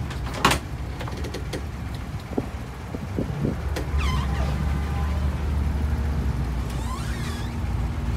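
Boat engine running with a steady low rumble that grows louder about four seconds in, with a few light knocks and two brief squeaks.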